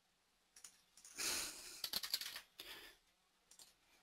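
Faint breathing with scattered computer keyboard and mouse clicks, including a quick run of clicks about two seconds in.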